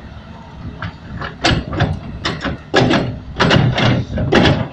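Caterpillar 325D hydraulic excavator digging: its bucket scrapes and crunches through wet earth and stones in a quick, irregular run of loud, rough scrapes starting about a second and a half in, over the steady drone of its diesel engine.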